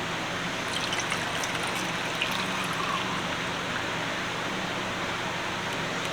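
Ammonia being poured in a steady stream into a glass mason jar over a screwdriver, with a few faint clinks about a second in.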